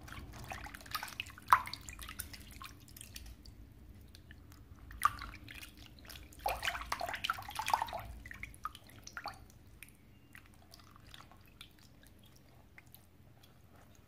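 Hands swishing and squeezing a wet paper tissue in a shallow basin of water: irregular splashes and drips, with sharp splashes about a second and a half and five seconds in and the busiest sloshing around six to eight seconds in, then only faint drips.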